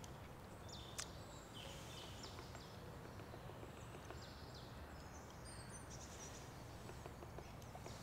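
Faint, steady background hum with distant birds chirping now and then, and a single sharp click about a second in.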